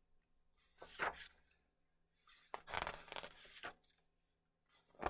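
Pages of a large picture book being handled and turned: a few soft paper rustles, the longest about midway.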